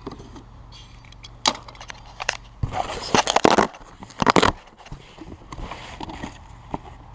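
A cardboard package being opened by hand: a sharp click, then loud tearing and rustling of tape and cardboard in two bursts a little over a second apart.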